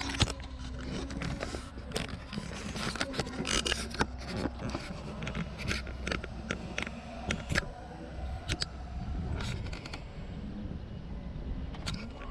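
Handling noise: the camera rubbing, scraping and clicking against engine-bay panels and plastic covers as it is pushed into tight spots, with many short irregular scrapes and knocks.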